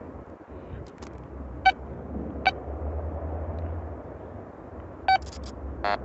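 Metal detector giving a few short beeps as its coil is swept back over a freshly dug hole, still signalling a buried target.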